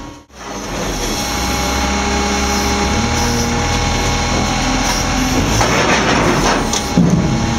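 Heavy machinery running with a steady low drone: a wheel loader's diesel engine beside a stone-splitting machine. The sound drops out briefly just after the start, harsher grinding noise comes in during the second half, and there is a knock near the end.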